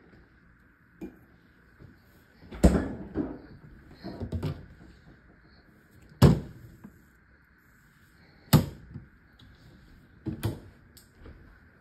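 Kitchen doors, the refrigerator's and the wooden island cabinets', being opened and shut: four sharp thumps a couple of seconds apart, with softer clicks and knocks between.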